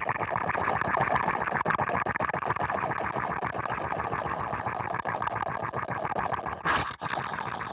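A man's long, rattling vocal noise made straight into a handheld microphone, a comic sound effect acting out taking a hit of marijuana, with a short sharp breath about seven seconds in.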